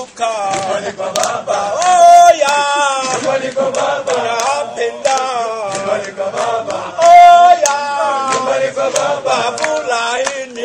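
Music soundtrack: a group of voices singing a chant-like song.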